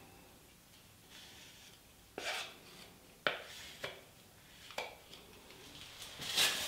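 Metal putty knife scraping and clicking against a mixing board loaded with Bondo body filler: a few short sharp scrapes about a second apart, with a louder rustle near the end.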